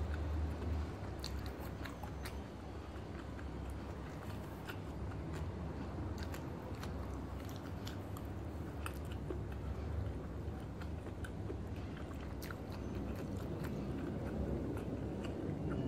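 A person chewing a mouthful of rice and squid adobo eaten by hand, with many small clicks and mouth noises. A steady low hum runs underneath.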